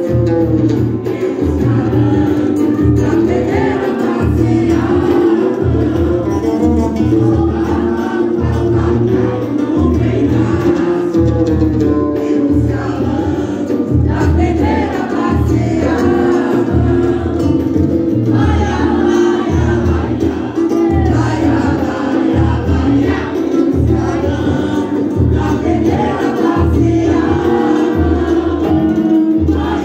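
A group of women singing a samba together, amplified through microphones, over a steady low percussion beat.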